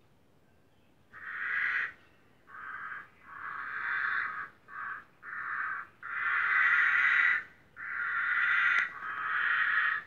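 A run of about eight harsh, raspy, crow-like calls, some short and some over a second long, starting about a second in; the longest and loudest come in the second half.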